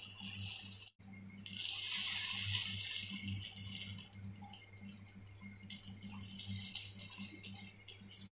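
Oil sizzling around paniyaram frying in a cast-iron paniyaram pan: a steady hiss that drops out briefly about a second in and is strongest from about two to three seconds in, over a low steady hum.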